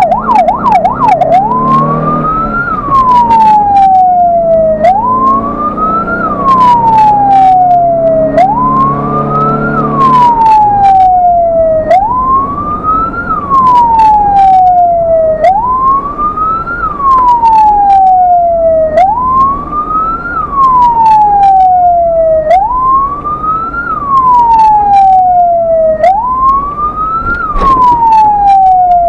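Ambulance electronic siren heard from inside the cab, switching from a fast yelp to a wail about a second in: a quick rise in pitch, then a slower falling sweep, repeating about every three and a half seconds. Scattered sharp clicks sound over it.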